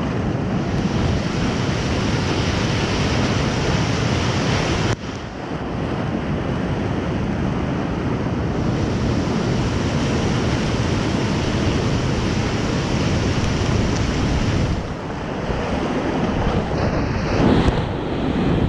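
Whitewater rapids of a creek in high flood flow, rushing steadily and heard from a kayak in the middle of them. The sound briefly dips about five seconds in, and water splashes over the kayak near the end.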